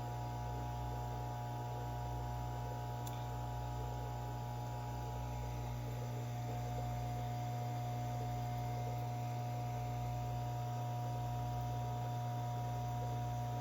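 Steady electrical hum, low and unchanging, with a few fainter steady higher tones over it.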